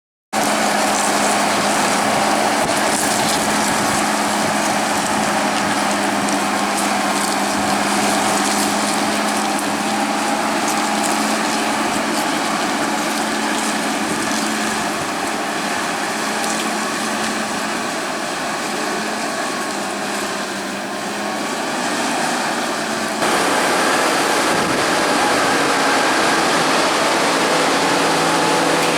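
Heavy harvest machinery running steadily: a constant engine hum under a wide rushing noise. The sound changes abruptly about 23 seconds in.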